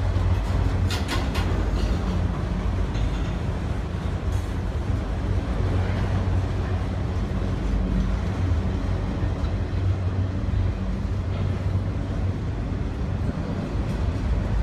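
Train running by, a steady rumble with a low drone and a few sharp clanks about a second in.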